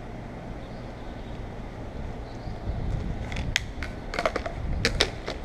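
Urethane caulking gun clicking as its trigger is worked to lay a glue bead around a car's back-glass opening: a low steady hum at first, then about a dozen sharp clicks, some with a short squeak, from about three seconds in.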